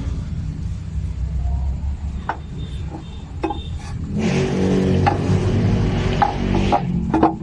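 An engine running with a steady low rumble, growing louder about four seconds in, with a few sharp metallic clicks and knocks.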